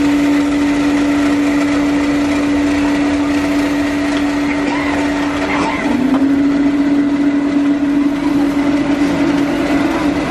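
Motor of a rice-puffing machine running with a steady hum, its pitch dipping briefly about halfway through.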